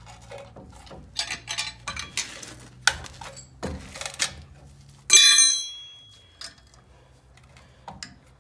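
Steel hand tools clicking and knocking against a brake caliper piston compressor as it is tightened, then a sharp metallic clank about five seconds in that rings on for about a second.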